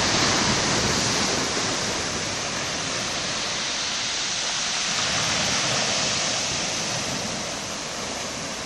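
Sea swell breaking and washing in around concrete tetrapod breakwater blocks, a continuous rushing surf that eases slightly near the end.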